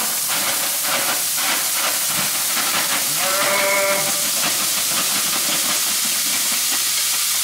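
Asian vegetable mix tipped into a hot pan with chicken, sizzling and hissing steadily as it fries. A short tonal whine rises over the sizzle about three and a half seconds in.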